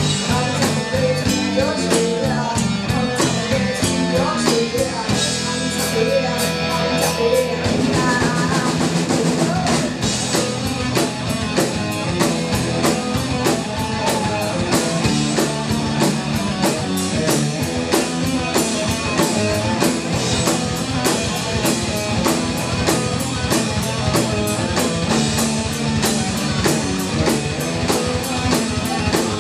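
Live hard rock band: distorted electric guitars through Marshall amplifiers, bass guitar and a Sonor drum kit, with a female voice singing for the first several seconds. After about eight seconds it turns into an instrumental passage driven by a fast, steady drum beat.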